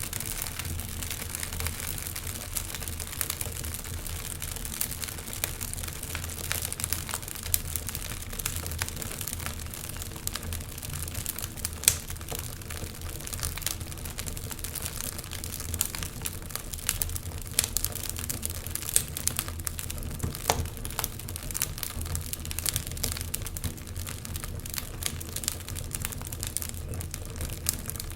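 Wood fire crackling, a constant patter of small irregular snaps with one sharper pop about twelve seconds in.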